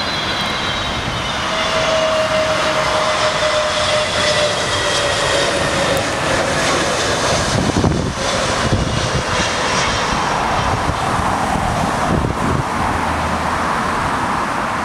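Airbus A320 jet engines on landing approach, passing low overhead: a steady jet roar with whining tones that slowly fall in pitch as the aircraft goes by.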